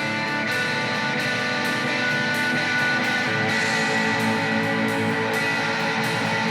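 Instrumental rock passage: electric guitar and bass with drums. The drums come in right at the start, with cymbal strokes about two and a half times a second over the sustained guitar chords.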